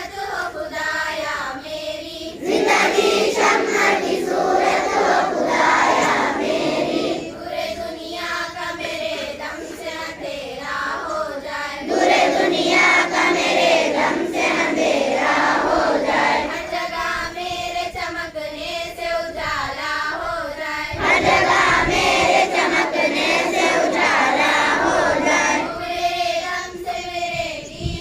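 A group of children singing together in chorus, the singing swelling louder in three long stretches between quieter phrases.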